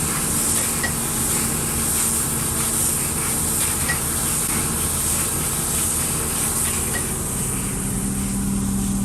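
Heavy rain pouring down: a steady hiss, with a faint low hum underneath.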